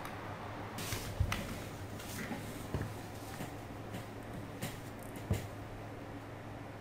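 Quiet room tone: a steady low electrical hum on the microphone, with a few faint, short clicks and knocks scattered through it.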